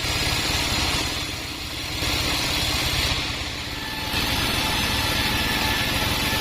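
Band sawmill running: a steady low machine drone with a hissing band-saw noise over it, which changes level abruptly a couple of times.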